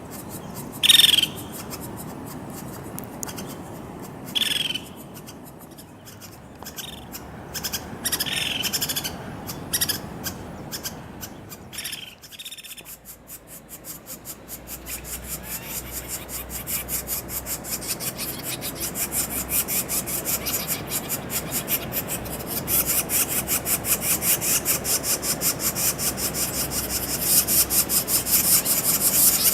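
Crimson-mantled woodpecker: five or six short, sharp calls over the first twelve seconds, then a long, even run of rapid taps like chipping at wood, growing louder toward the end.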